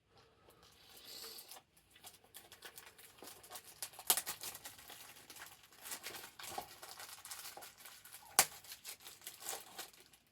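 Plastic shrink-wrap being torn and peeled off a new DVD case: dense, irregular crackling and crinkling, with a sharp snap about eight seconds in.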